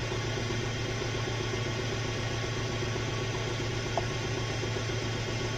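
Hyundai Accent engine idling with a steady hum. The scan shows cylinder misfires, which the mechanic puts down to the spark plugs or, failing that, the ignition coils.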